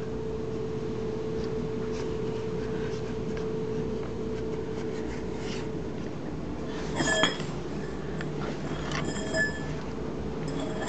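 Light metallic clinks, one about seven seconds in and a couple more around nine seconds, each ringing briefly, over a steady low hum.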